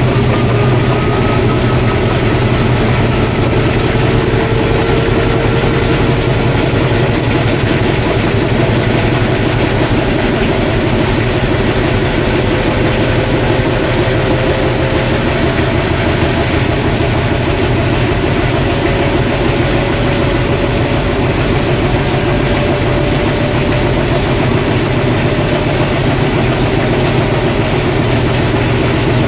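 Beko WDC7523002W washer-dryer in its final spin, the drum turning at high speed with a steady loud rushing rumble. A faint motor whine slowly rises in pitch as it goes.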